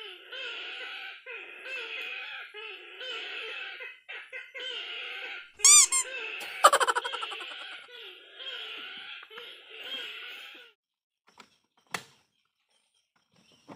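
A short bird call repeated over and over, a little more than once a second, with two much louder calls near the middle; it stops abruptly about eleven seconds in.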